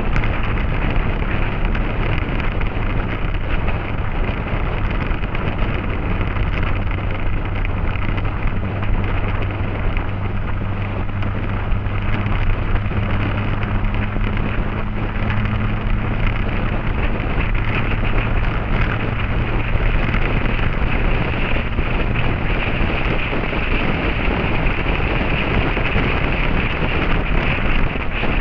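Motorcycle riding along at a steady speed: heavy wind rush on the microphone over a steady, even engine note that sinks into the wind about two-thirds of the way through.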